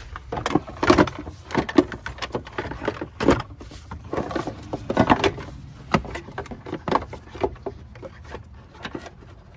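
Hard plastic air filter box of a Nissan Altima knocking, clattering and scraping against the engine-bay parts as it is worked back into place by hand, in many irregular knocks.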